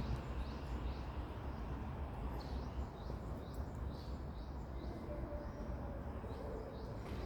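Small birds chirping, short high chirps repeated every half second or so, over a steady low rumble.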